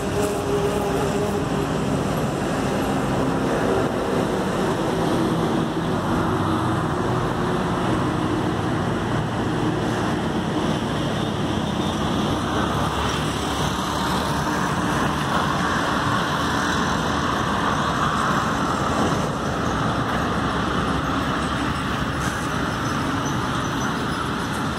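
Steady road traffic on a multi-lane highway: the mixed rumble of engines and tyres from passing vehicles. A low engine hum stands out in the first few seconds, and a vehicle's tyre noise swells and fades around the middle.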